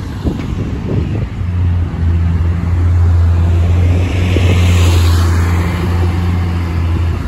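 Diesel engine of a single-deck bus pulling away and passing close by: a steady low drone, loudest as the bus goes past in the middle, that cuts off suddenly at the end.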